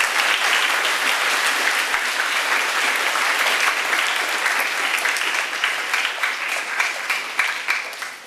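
Audience of students applauding, many hands clapping in a dense steady patter that thins out near the end.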